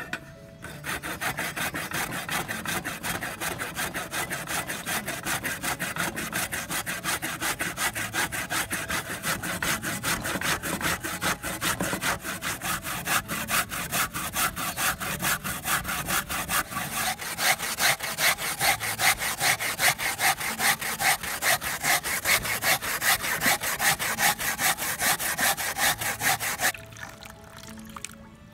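Fresh coconut flesh grated by hand on a flat metal grater: a long run of rapid, even rasping strokes, louder in the second half, stopping shortly before the end.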